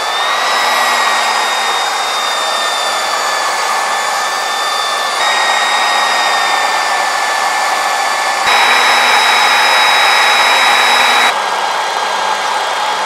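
Electric belt polisher running, its abrasive belt polishing the freshly ground journals of an L10 Cummins crankshaft turning in a crankshaft grinder. A steady whine over a hiss, which steps louder about five seconds in, louder still from about eight and a half seconds, and drops back about eleven seconds in.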